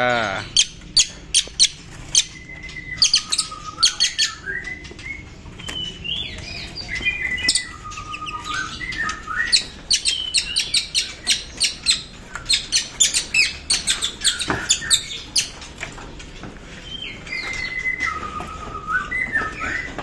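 Several caged songbirds chirping and calling, with many sharp rapid chips. A whistled phrase of stepped, falling notes comes three times.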